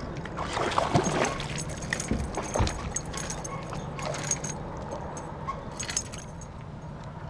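Irregular knocks, clicks and splashes on a fishing kayak as a small hooked bass is brought in close to the boat, over a faint steady low hum.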